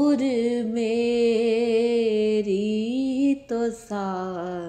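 A woman singing a naat unaccompanied, drawing out long held notes with a wavering vibrato. She breaks for a quick breath about three and a half seconds in, then sings on.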